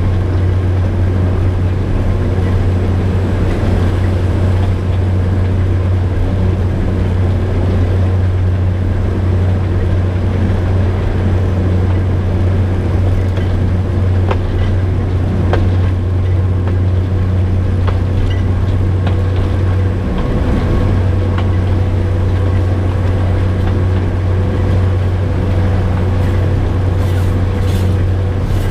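Diesel locomotive running steadily as the train travels, a deep unbroken drone, with a few sharp clicks about halfway through.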